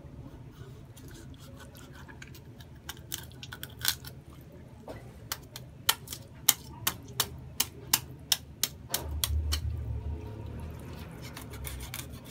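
A kitchen knife cutting through a whole raw chicken held in the hands: a run of short, sharp clicks and cracks, about two a second through the middle, as the blade works through the carcass to split it in two, followed by a low rumble.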